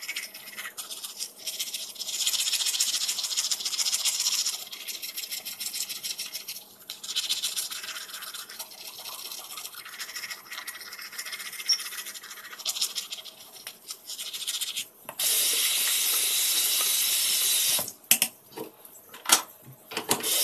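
Toothbrush scrubbing teeth in bursts of quick strokes. About fifteen seconds in, a steady hiss, the loudest part, runs for about three seconds, and a few sharp knocks follow.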